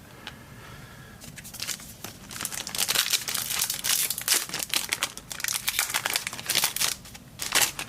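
Plastic trading card pack wrapper being crinkled and torn open by hand, an irregular crackling that starts about two seconds in and goes on for several seconds.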